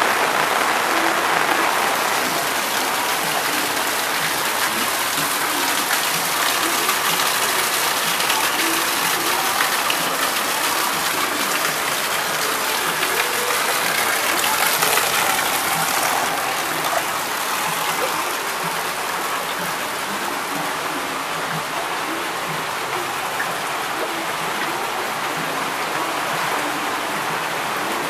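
Heavy typhoon rain falling steadily, splashing onto standing floodwater and hard surfaces.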